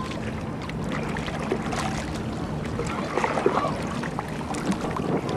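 Water sloshing and lapping against the hull of a small boat under sail, with scattered small splashes.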